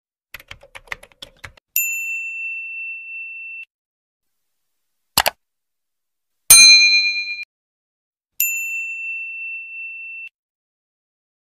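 Video-intro sound effects. A quick run of small typing-like clicks is followed by a ringing ding. Later a single click is followed by a louder, brighter bell chime, the sound of a subscribe button and notification bell being clicked, and then one more ding.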